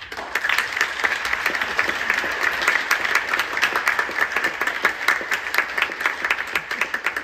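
Audience applause: many people clapping at once, breaking out suddenly, building over the first second, then holding steady.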